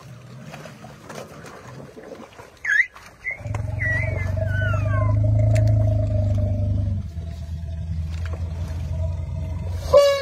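Asian elephants calling: a short rising squeal a few seconds in, then falling squeals over a steady low rumble, and a loud, sudden trumpet near the end.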